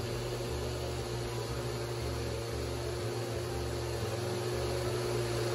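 NutriBullet 600 Series blender running steadily, blending rolled oats and cold water into oat milk.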